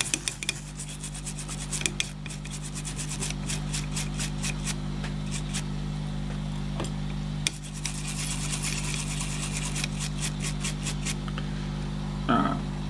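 Stiff bristle brush scrubbing a small circuit board wet with cleaning liquid, in rapid back-and-forth strokes. The strokes stop briefly about halfway through, then start again.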